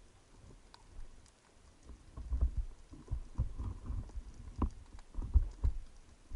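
Irregular muffled thumps and knocks heard underwater through the camera, starting about two seconds in and bunching into several clusters, with a few fainter sharp clicks among them.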